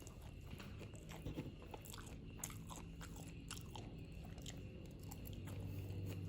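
Close-up eating sounds of someone chewing and biting spicy Korean-style fried noodles, with many small irregular wet clicks.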